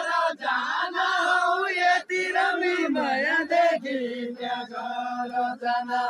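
Far-western Nepali deuda song: a group of men singing together in a chant-like melody with long held notes and short breaks between lines, as they dance in a linked-arm circle.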